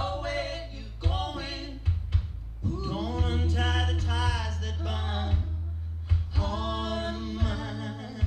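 Song with a sung vocal over a heavy bass line and drum hits, played back through Bang & Olufsen Beolab 28 active speakers.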